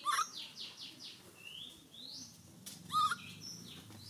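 Short, high-pitched animal calls: a wavering squeal near the start and again about three seconds in, with a quick run of falling chirps and a couple of rising whistles between.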